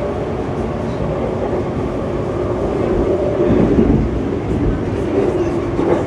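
Running noise of an Alstom MOVIA R151 metro train heard inside the passenger car while it cruises between stations: a steady rumble with a low droning tone, growing a little louder about three seconds in.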